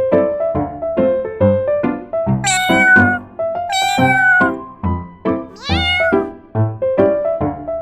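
A domestic cat meowing three times over background music of short, evenly paced notes; the third meow falls in pitch.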